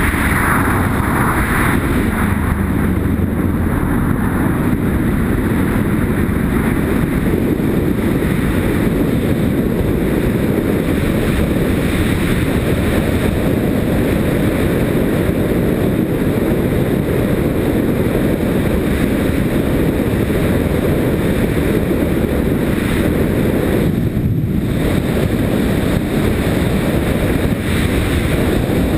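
Steady loud rumble of wind buffeting a helmet-mounted action camera's microphone on a moving Yamaha Ténéré motorcycle, mixed with the motorcycle's engine and road noise.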